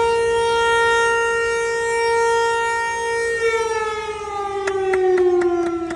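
Outdoor tornado warning siren sounding during a siren test. It holds one steady tone, then winds down with its pitch falling slowly from a little past halfway. Near the end, a regular ticking of about four a second comes in.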